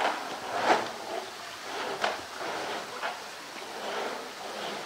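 Hollow plastic knocks and scrapes, irregular, as a polar bear bites, pushes and rolls a blue plastic drum on a concrete ledge. The loudest knock comes about two thirds of a second in.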